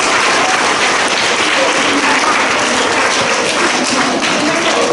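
A hall full of schoolchildren clapping in sustained applause, with some voices mixed in.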